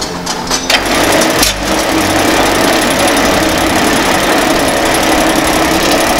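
GreatCity MT5250 electric noodle making machine running, its rollers and cutter turning as the dough sheet is cut into noodles. It is a steady mechanical clatter with a fast, even rattle, setting in about a second in after a few clicks.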